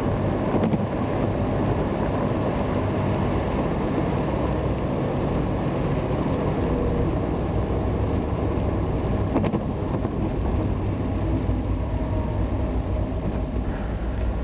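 Vehicle driving on wet roads: steady engine and road noise with a deep low rumble, and a couple of faint clicks.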